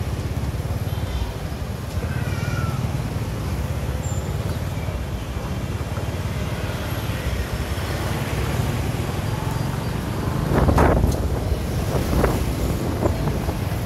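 Steady rumble of motorbike and car traffic on a busy street. About ten and a half seconds in a louder pitched sound rises above it, with a shorter one a little over a second later.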